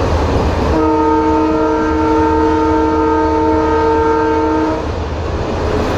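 Road traffic noise with a steady low rumble. About a second in, a vehicle horn sounds one long blast of several steady notes, held for about four seconds before it stops.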